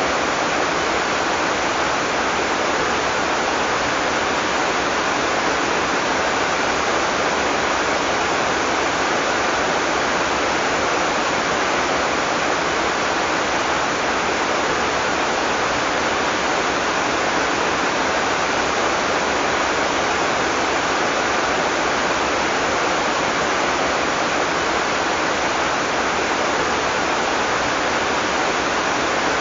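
Heavy tropical rain falling steadily, a dense even hiss with no thunder.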